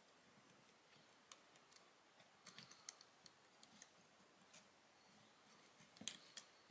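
Faint, scattered clicks and taps of small plastic and metal camera parts being handled and fitted back into a Canon SX720 compact camera, with a little cluster about two and a half seconds in and another near the end.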